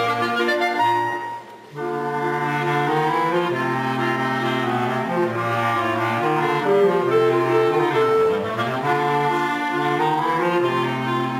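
Clarinets and a bass clarinet playing together in a chamber ensemble: sustained melody notes over a moving bass line. The playing breaks off briefly about a second and a half in, then resumes.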